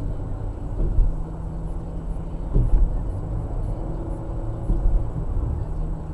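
Engine and road noise of a moving car, heard from inside the cabin: a steady low rumble with a faint hum and a few short knocks.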